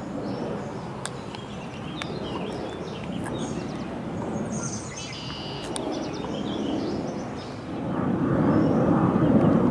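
Birds chirping over a steady low outdoor rumble that grows louder near the end.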